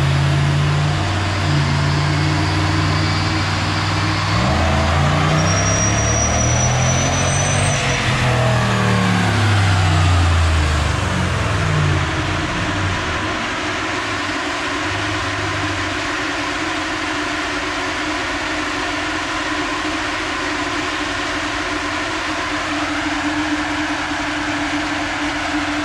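A Ram 1500's 5.7 L Hemi V8, still on its stock airbox and filter, making a dyno pull: the engine note climbs steadily in pitch and then winds back down as the truck coasts off. A steady hum with a held tone follows.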